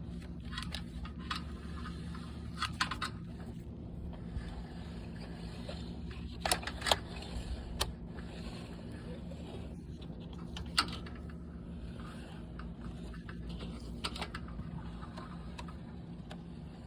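Handling noise as an inspection camera's push cable is pulled back out of a dryer vent: scattered sharp clicks and light scrapes over a steady low hum.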